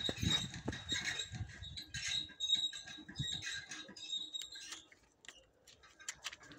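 Horses eating hay at a feeder: irregular crunching chewing and hay rustling, quieter for a moment about five seconds in.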